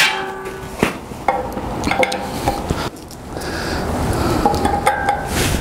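Metal clanks and clinks from a steel shop crane (engine hoist) and its chains as the air-compressor pump hanging from it is handled, with several sharp knocks that ring briefly.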